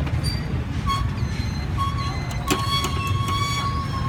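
Street traffic: a steady low rumble of running engines, with a high, clear tone sounding briefly twice and then held for about a second and a half near the end, and one sharp click about halfway through.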